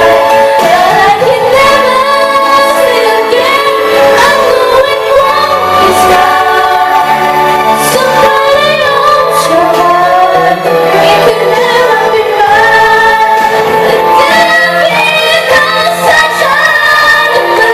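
Music with a woman singing a melody over accompaniment.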